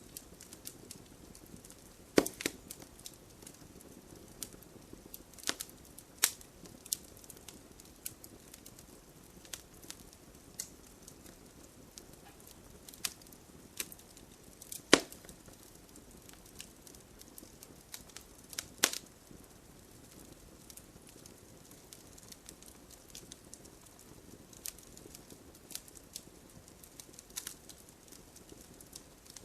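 Wood fire burning with a soft steady hiss and irregular sharp pops and cracks as the logs split, a few of them much louder than the rest.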